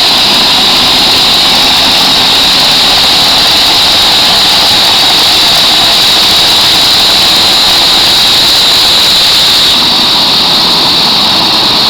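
Helicopter running loud and steady, a high whine over the engine and rotor noise. The highest hiss eases slightly about ten seconds in.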